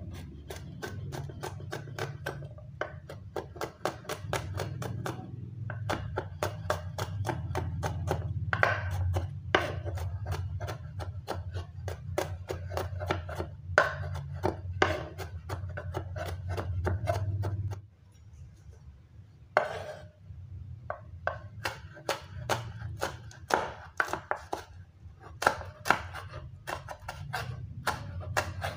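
Knife chopping garlic on a wooden cutting board: quick, irregular taps of the blade against the wood, several a second, with a short pause about two-thirds of the way through. Near the end the same taps come from chopping red chillies.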